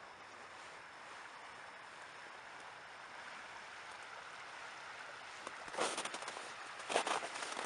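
Steady hiss of open river water flowing. Near the end, crunching steps in frozen snow come roughly once a second.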